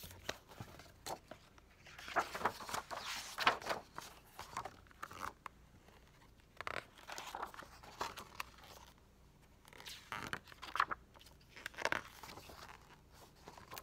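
Pages of a hardcover picture book being handled and turned by hand: irregular paper rustles and crinkles in bunches, the busiest about two to four seconds in, again around seven seconds and around eleven to twelve seconds.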